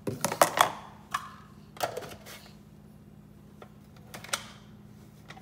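Plastic clicks and knocks as a small kitchen mini chopper is loaded with green bell pepper pieces and its lid pressed down. The knocks come in small clusters, with a low steady hum underneath.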